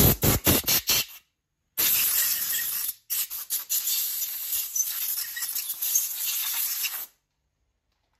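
Compressed-air blow gun blowing out a scooter's aluminium gearbox case half: several short puffs of hissing air in the first second, then after a brief pause a blast of about a second and a longer one of about four seconds that stops suddenly.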